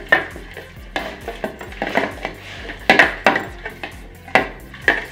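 Metal spoons clinking and scraping against clear mixing bowls as glue and water are stirred for slime, in irregular clinks with a few louder knocks about three and four and a half seconds in.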